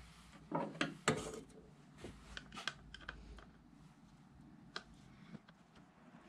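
Scattered clicks and light knocks of a screwdriver and hands working on a powered speaker's amplifier board and heatsink, the loudest knock about a second in.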